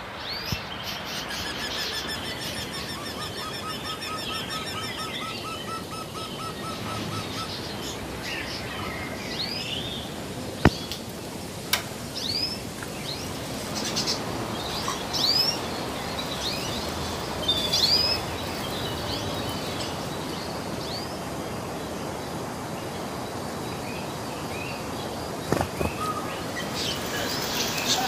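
Caged small birds chirping. A rapid repeated trill comes in the first few seconds, then scattered short upward-sweeping chirps, with a couple of sharp clicks about ten and twelve seconds in.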